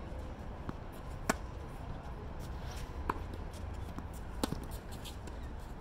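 Tennis rally: balls struck by racquets and bouncing on the court, heard as sharp separate pocks, the loudest about a second in, others near three seconds and at about four and a half seconds.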